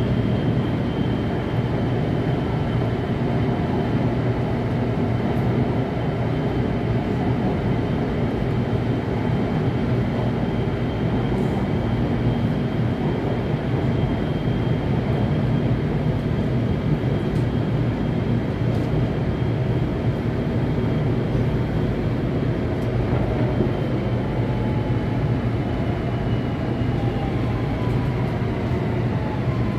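Taipei Metro C321 train with GTO-VVVF traction running between stations, heard from inside the car: a steady rumble of wheels and running gear with a thin high whine from the traction equipment. Near the end the whine dips slightly and lower motor tones come in, as the train begins to slow.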